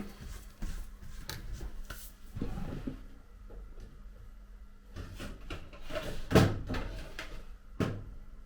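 Scattered clicks and knocks from handling small phone parts and tools on a workbench, with a sharper knock about six seconds in and another near the end, over a faint steady hum.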